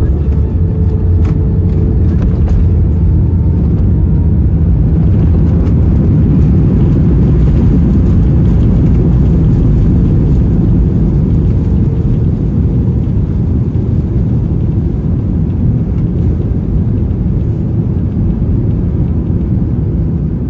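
Airbus A321 cabin rumble during the landing rollout, heard from a window seat over the wing with the ground spoilers raised. The deep, steady rumble of the wheels and engines eases gradually in the second half as the jet slows, with a few faint rattles in the first seconds.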